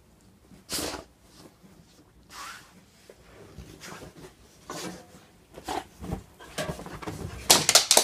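A wet dog rolling and rubbing itself on a bed's covers, with separate bursts of rustling fabric a second or two apart. Near the end its claws clatter in a fast run of clicks on a wooden floor as it runs off.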